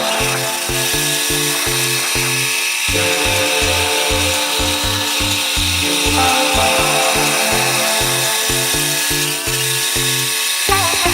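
Music with a steady, pulsing bass line over the steady whine of a power tool grinding concrete.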